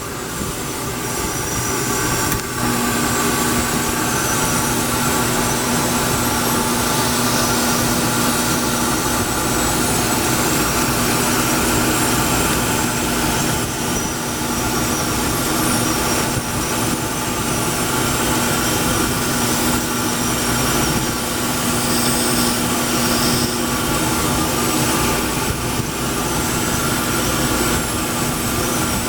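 A shop power tool running steadily, with a steady hum that comes in a couple of seconds in and holds.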